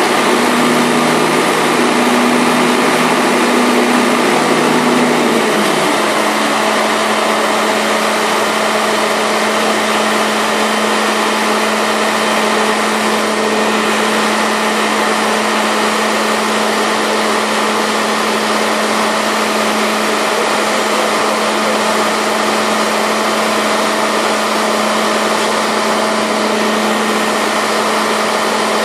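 Tractor engine running steadily, powering a trailed grape harvester as the harvester's elevator arms are raised. A wavering hum in the first few seconds settles into one steady tone about six seconds in.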